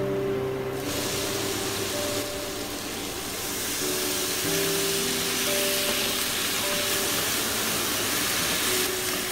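Background music in slow, sustained notes over a steady sizzling hiss of cucumber and tofu stir-frying in a wok. The hiss starts about a second in.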